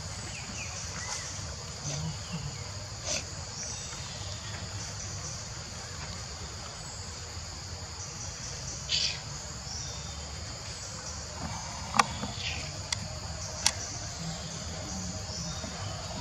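Steady high-pitched drone of an insect chorus, with a low outdoor rumble beneath. A few short calls rise over it, and two sharp clicks about twelve and fourteen seconds in are the loudest sounds.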